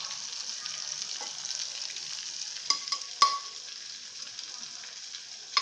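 Murrel fish frying in hot oil, a steady sizzle, with three quick clinks of a steel spatula about halfway through and one more at the end as the fried pieces are lifted out.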